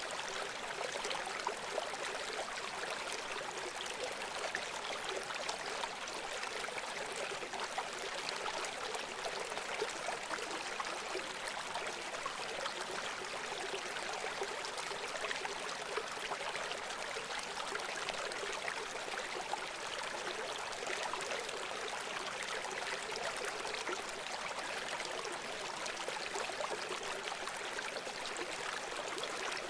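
A river or stream flowing steadily: a continuous rushing and splashing of running water, without pause or change.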